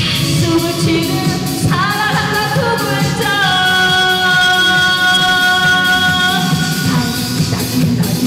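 Live trot song: a woman singing over a band backing track with a steady beat. She holds one long note for about three seconds in the middle.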